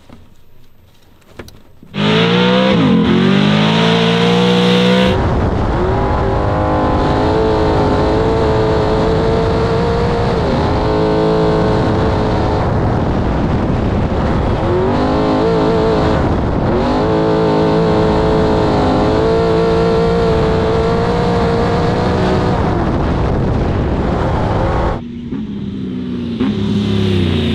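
Trophy truck engine revving hard under acceleration. The pitch climbs and falls back at each gear change as it pulls through the gears. It comes in abruptly about two seconds in and eases off briefly near the end.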